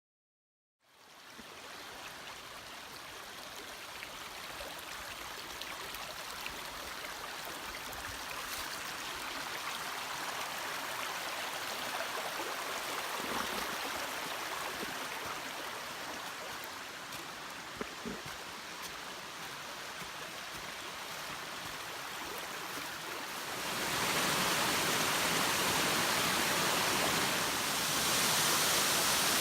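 Steady rush of a 13-metre mountain waterfall. It fades in about a second in, grows gradually louder, and gets clearly louder again near the end.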